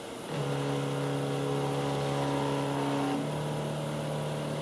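CNC router's Z-axis drive motor whining steadily as it jogs the spindle and bit down toward the edge-finder plate. The tone changes about three seconds in.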